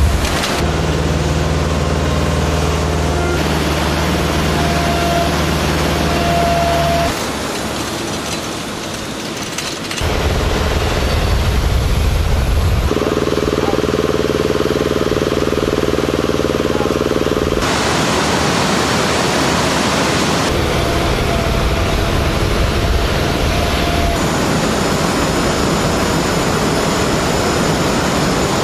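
Steady hum of engines and ground equipment on a flight line, the kind of machinery that drives bomb lift trucks and munitions trailers. The hum changes abruptly every few seconds, with a quieter stretch about a third of the way in.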